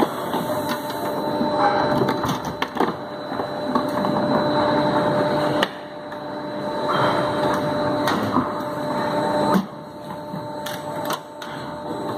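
Plastic injection moulding machine running with a steady hum, with clicks and knocks as its sliding safety gate is worked and moulded plastic buckets are handled. The machine noise drops suddenly twice, about halfway through and near the end.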